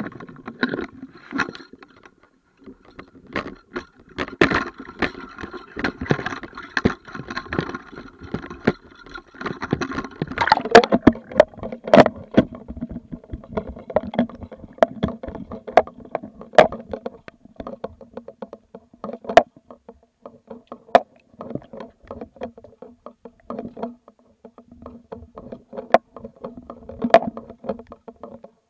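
Underwater camera in a waterproof housing being lowered into the sea: irregular muffled knocks, clicks and water sloshing against the housing, with a faint steady hum underneath.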